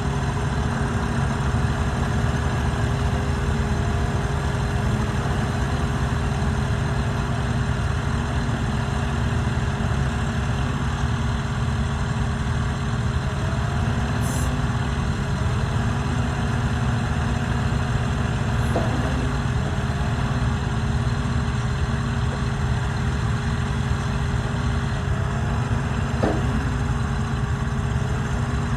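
Bobcat E88 mini excavator's diesel engine idling steadily, with a few faint ticks.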